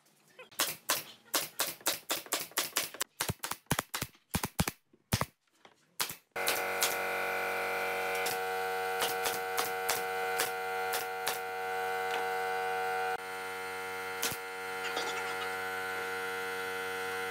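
Pneumatic brad nailer firing a fast run of shots into pine boards. About six seconds in a steady machine hum starts abruptly, with a few more nail shots over it.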